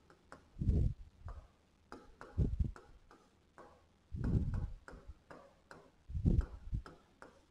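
Marker pen writing on a whiteboard: a run of small ticks and scratches as the tip moves over the board, with four duller, louder knocks about every second and a half to two seconds as strokes land.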